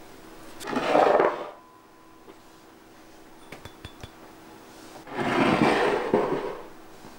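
Small glass dishes handled over a plastic mixing bowl as dry baking ingredients are tipped in: two swishing, scraping sounds of about a second each, near the start and about five seconds in, with a few light glass clinks between them.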